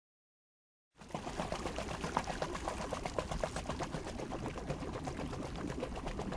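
A rapid, irregular mechanical clicking and clattering over a low rumble, starting about a second in.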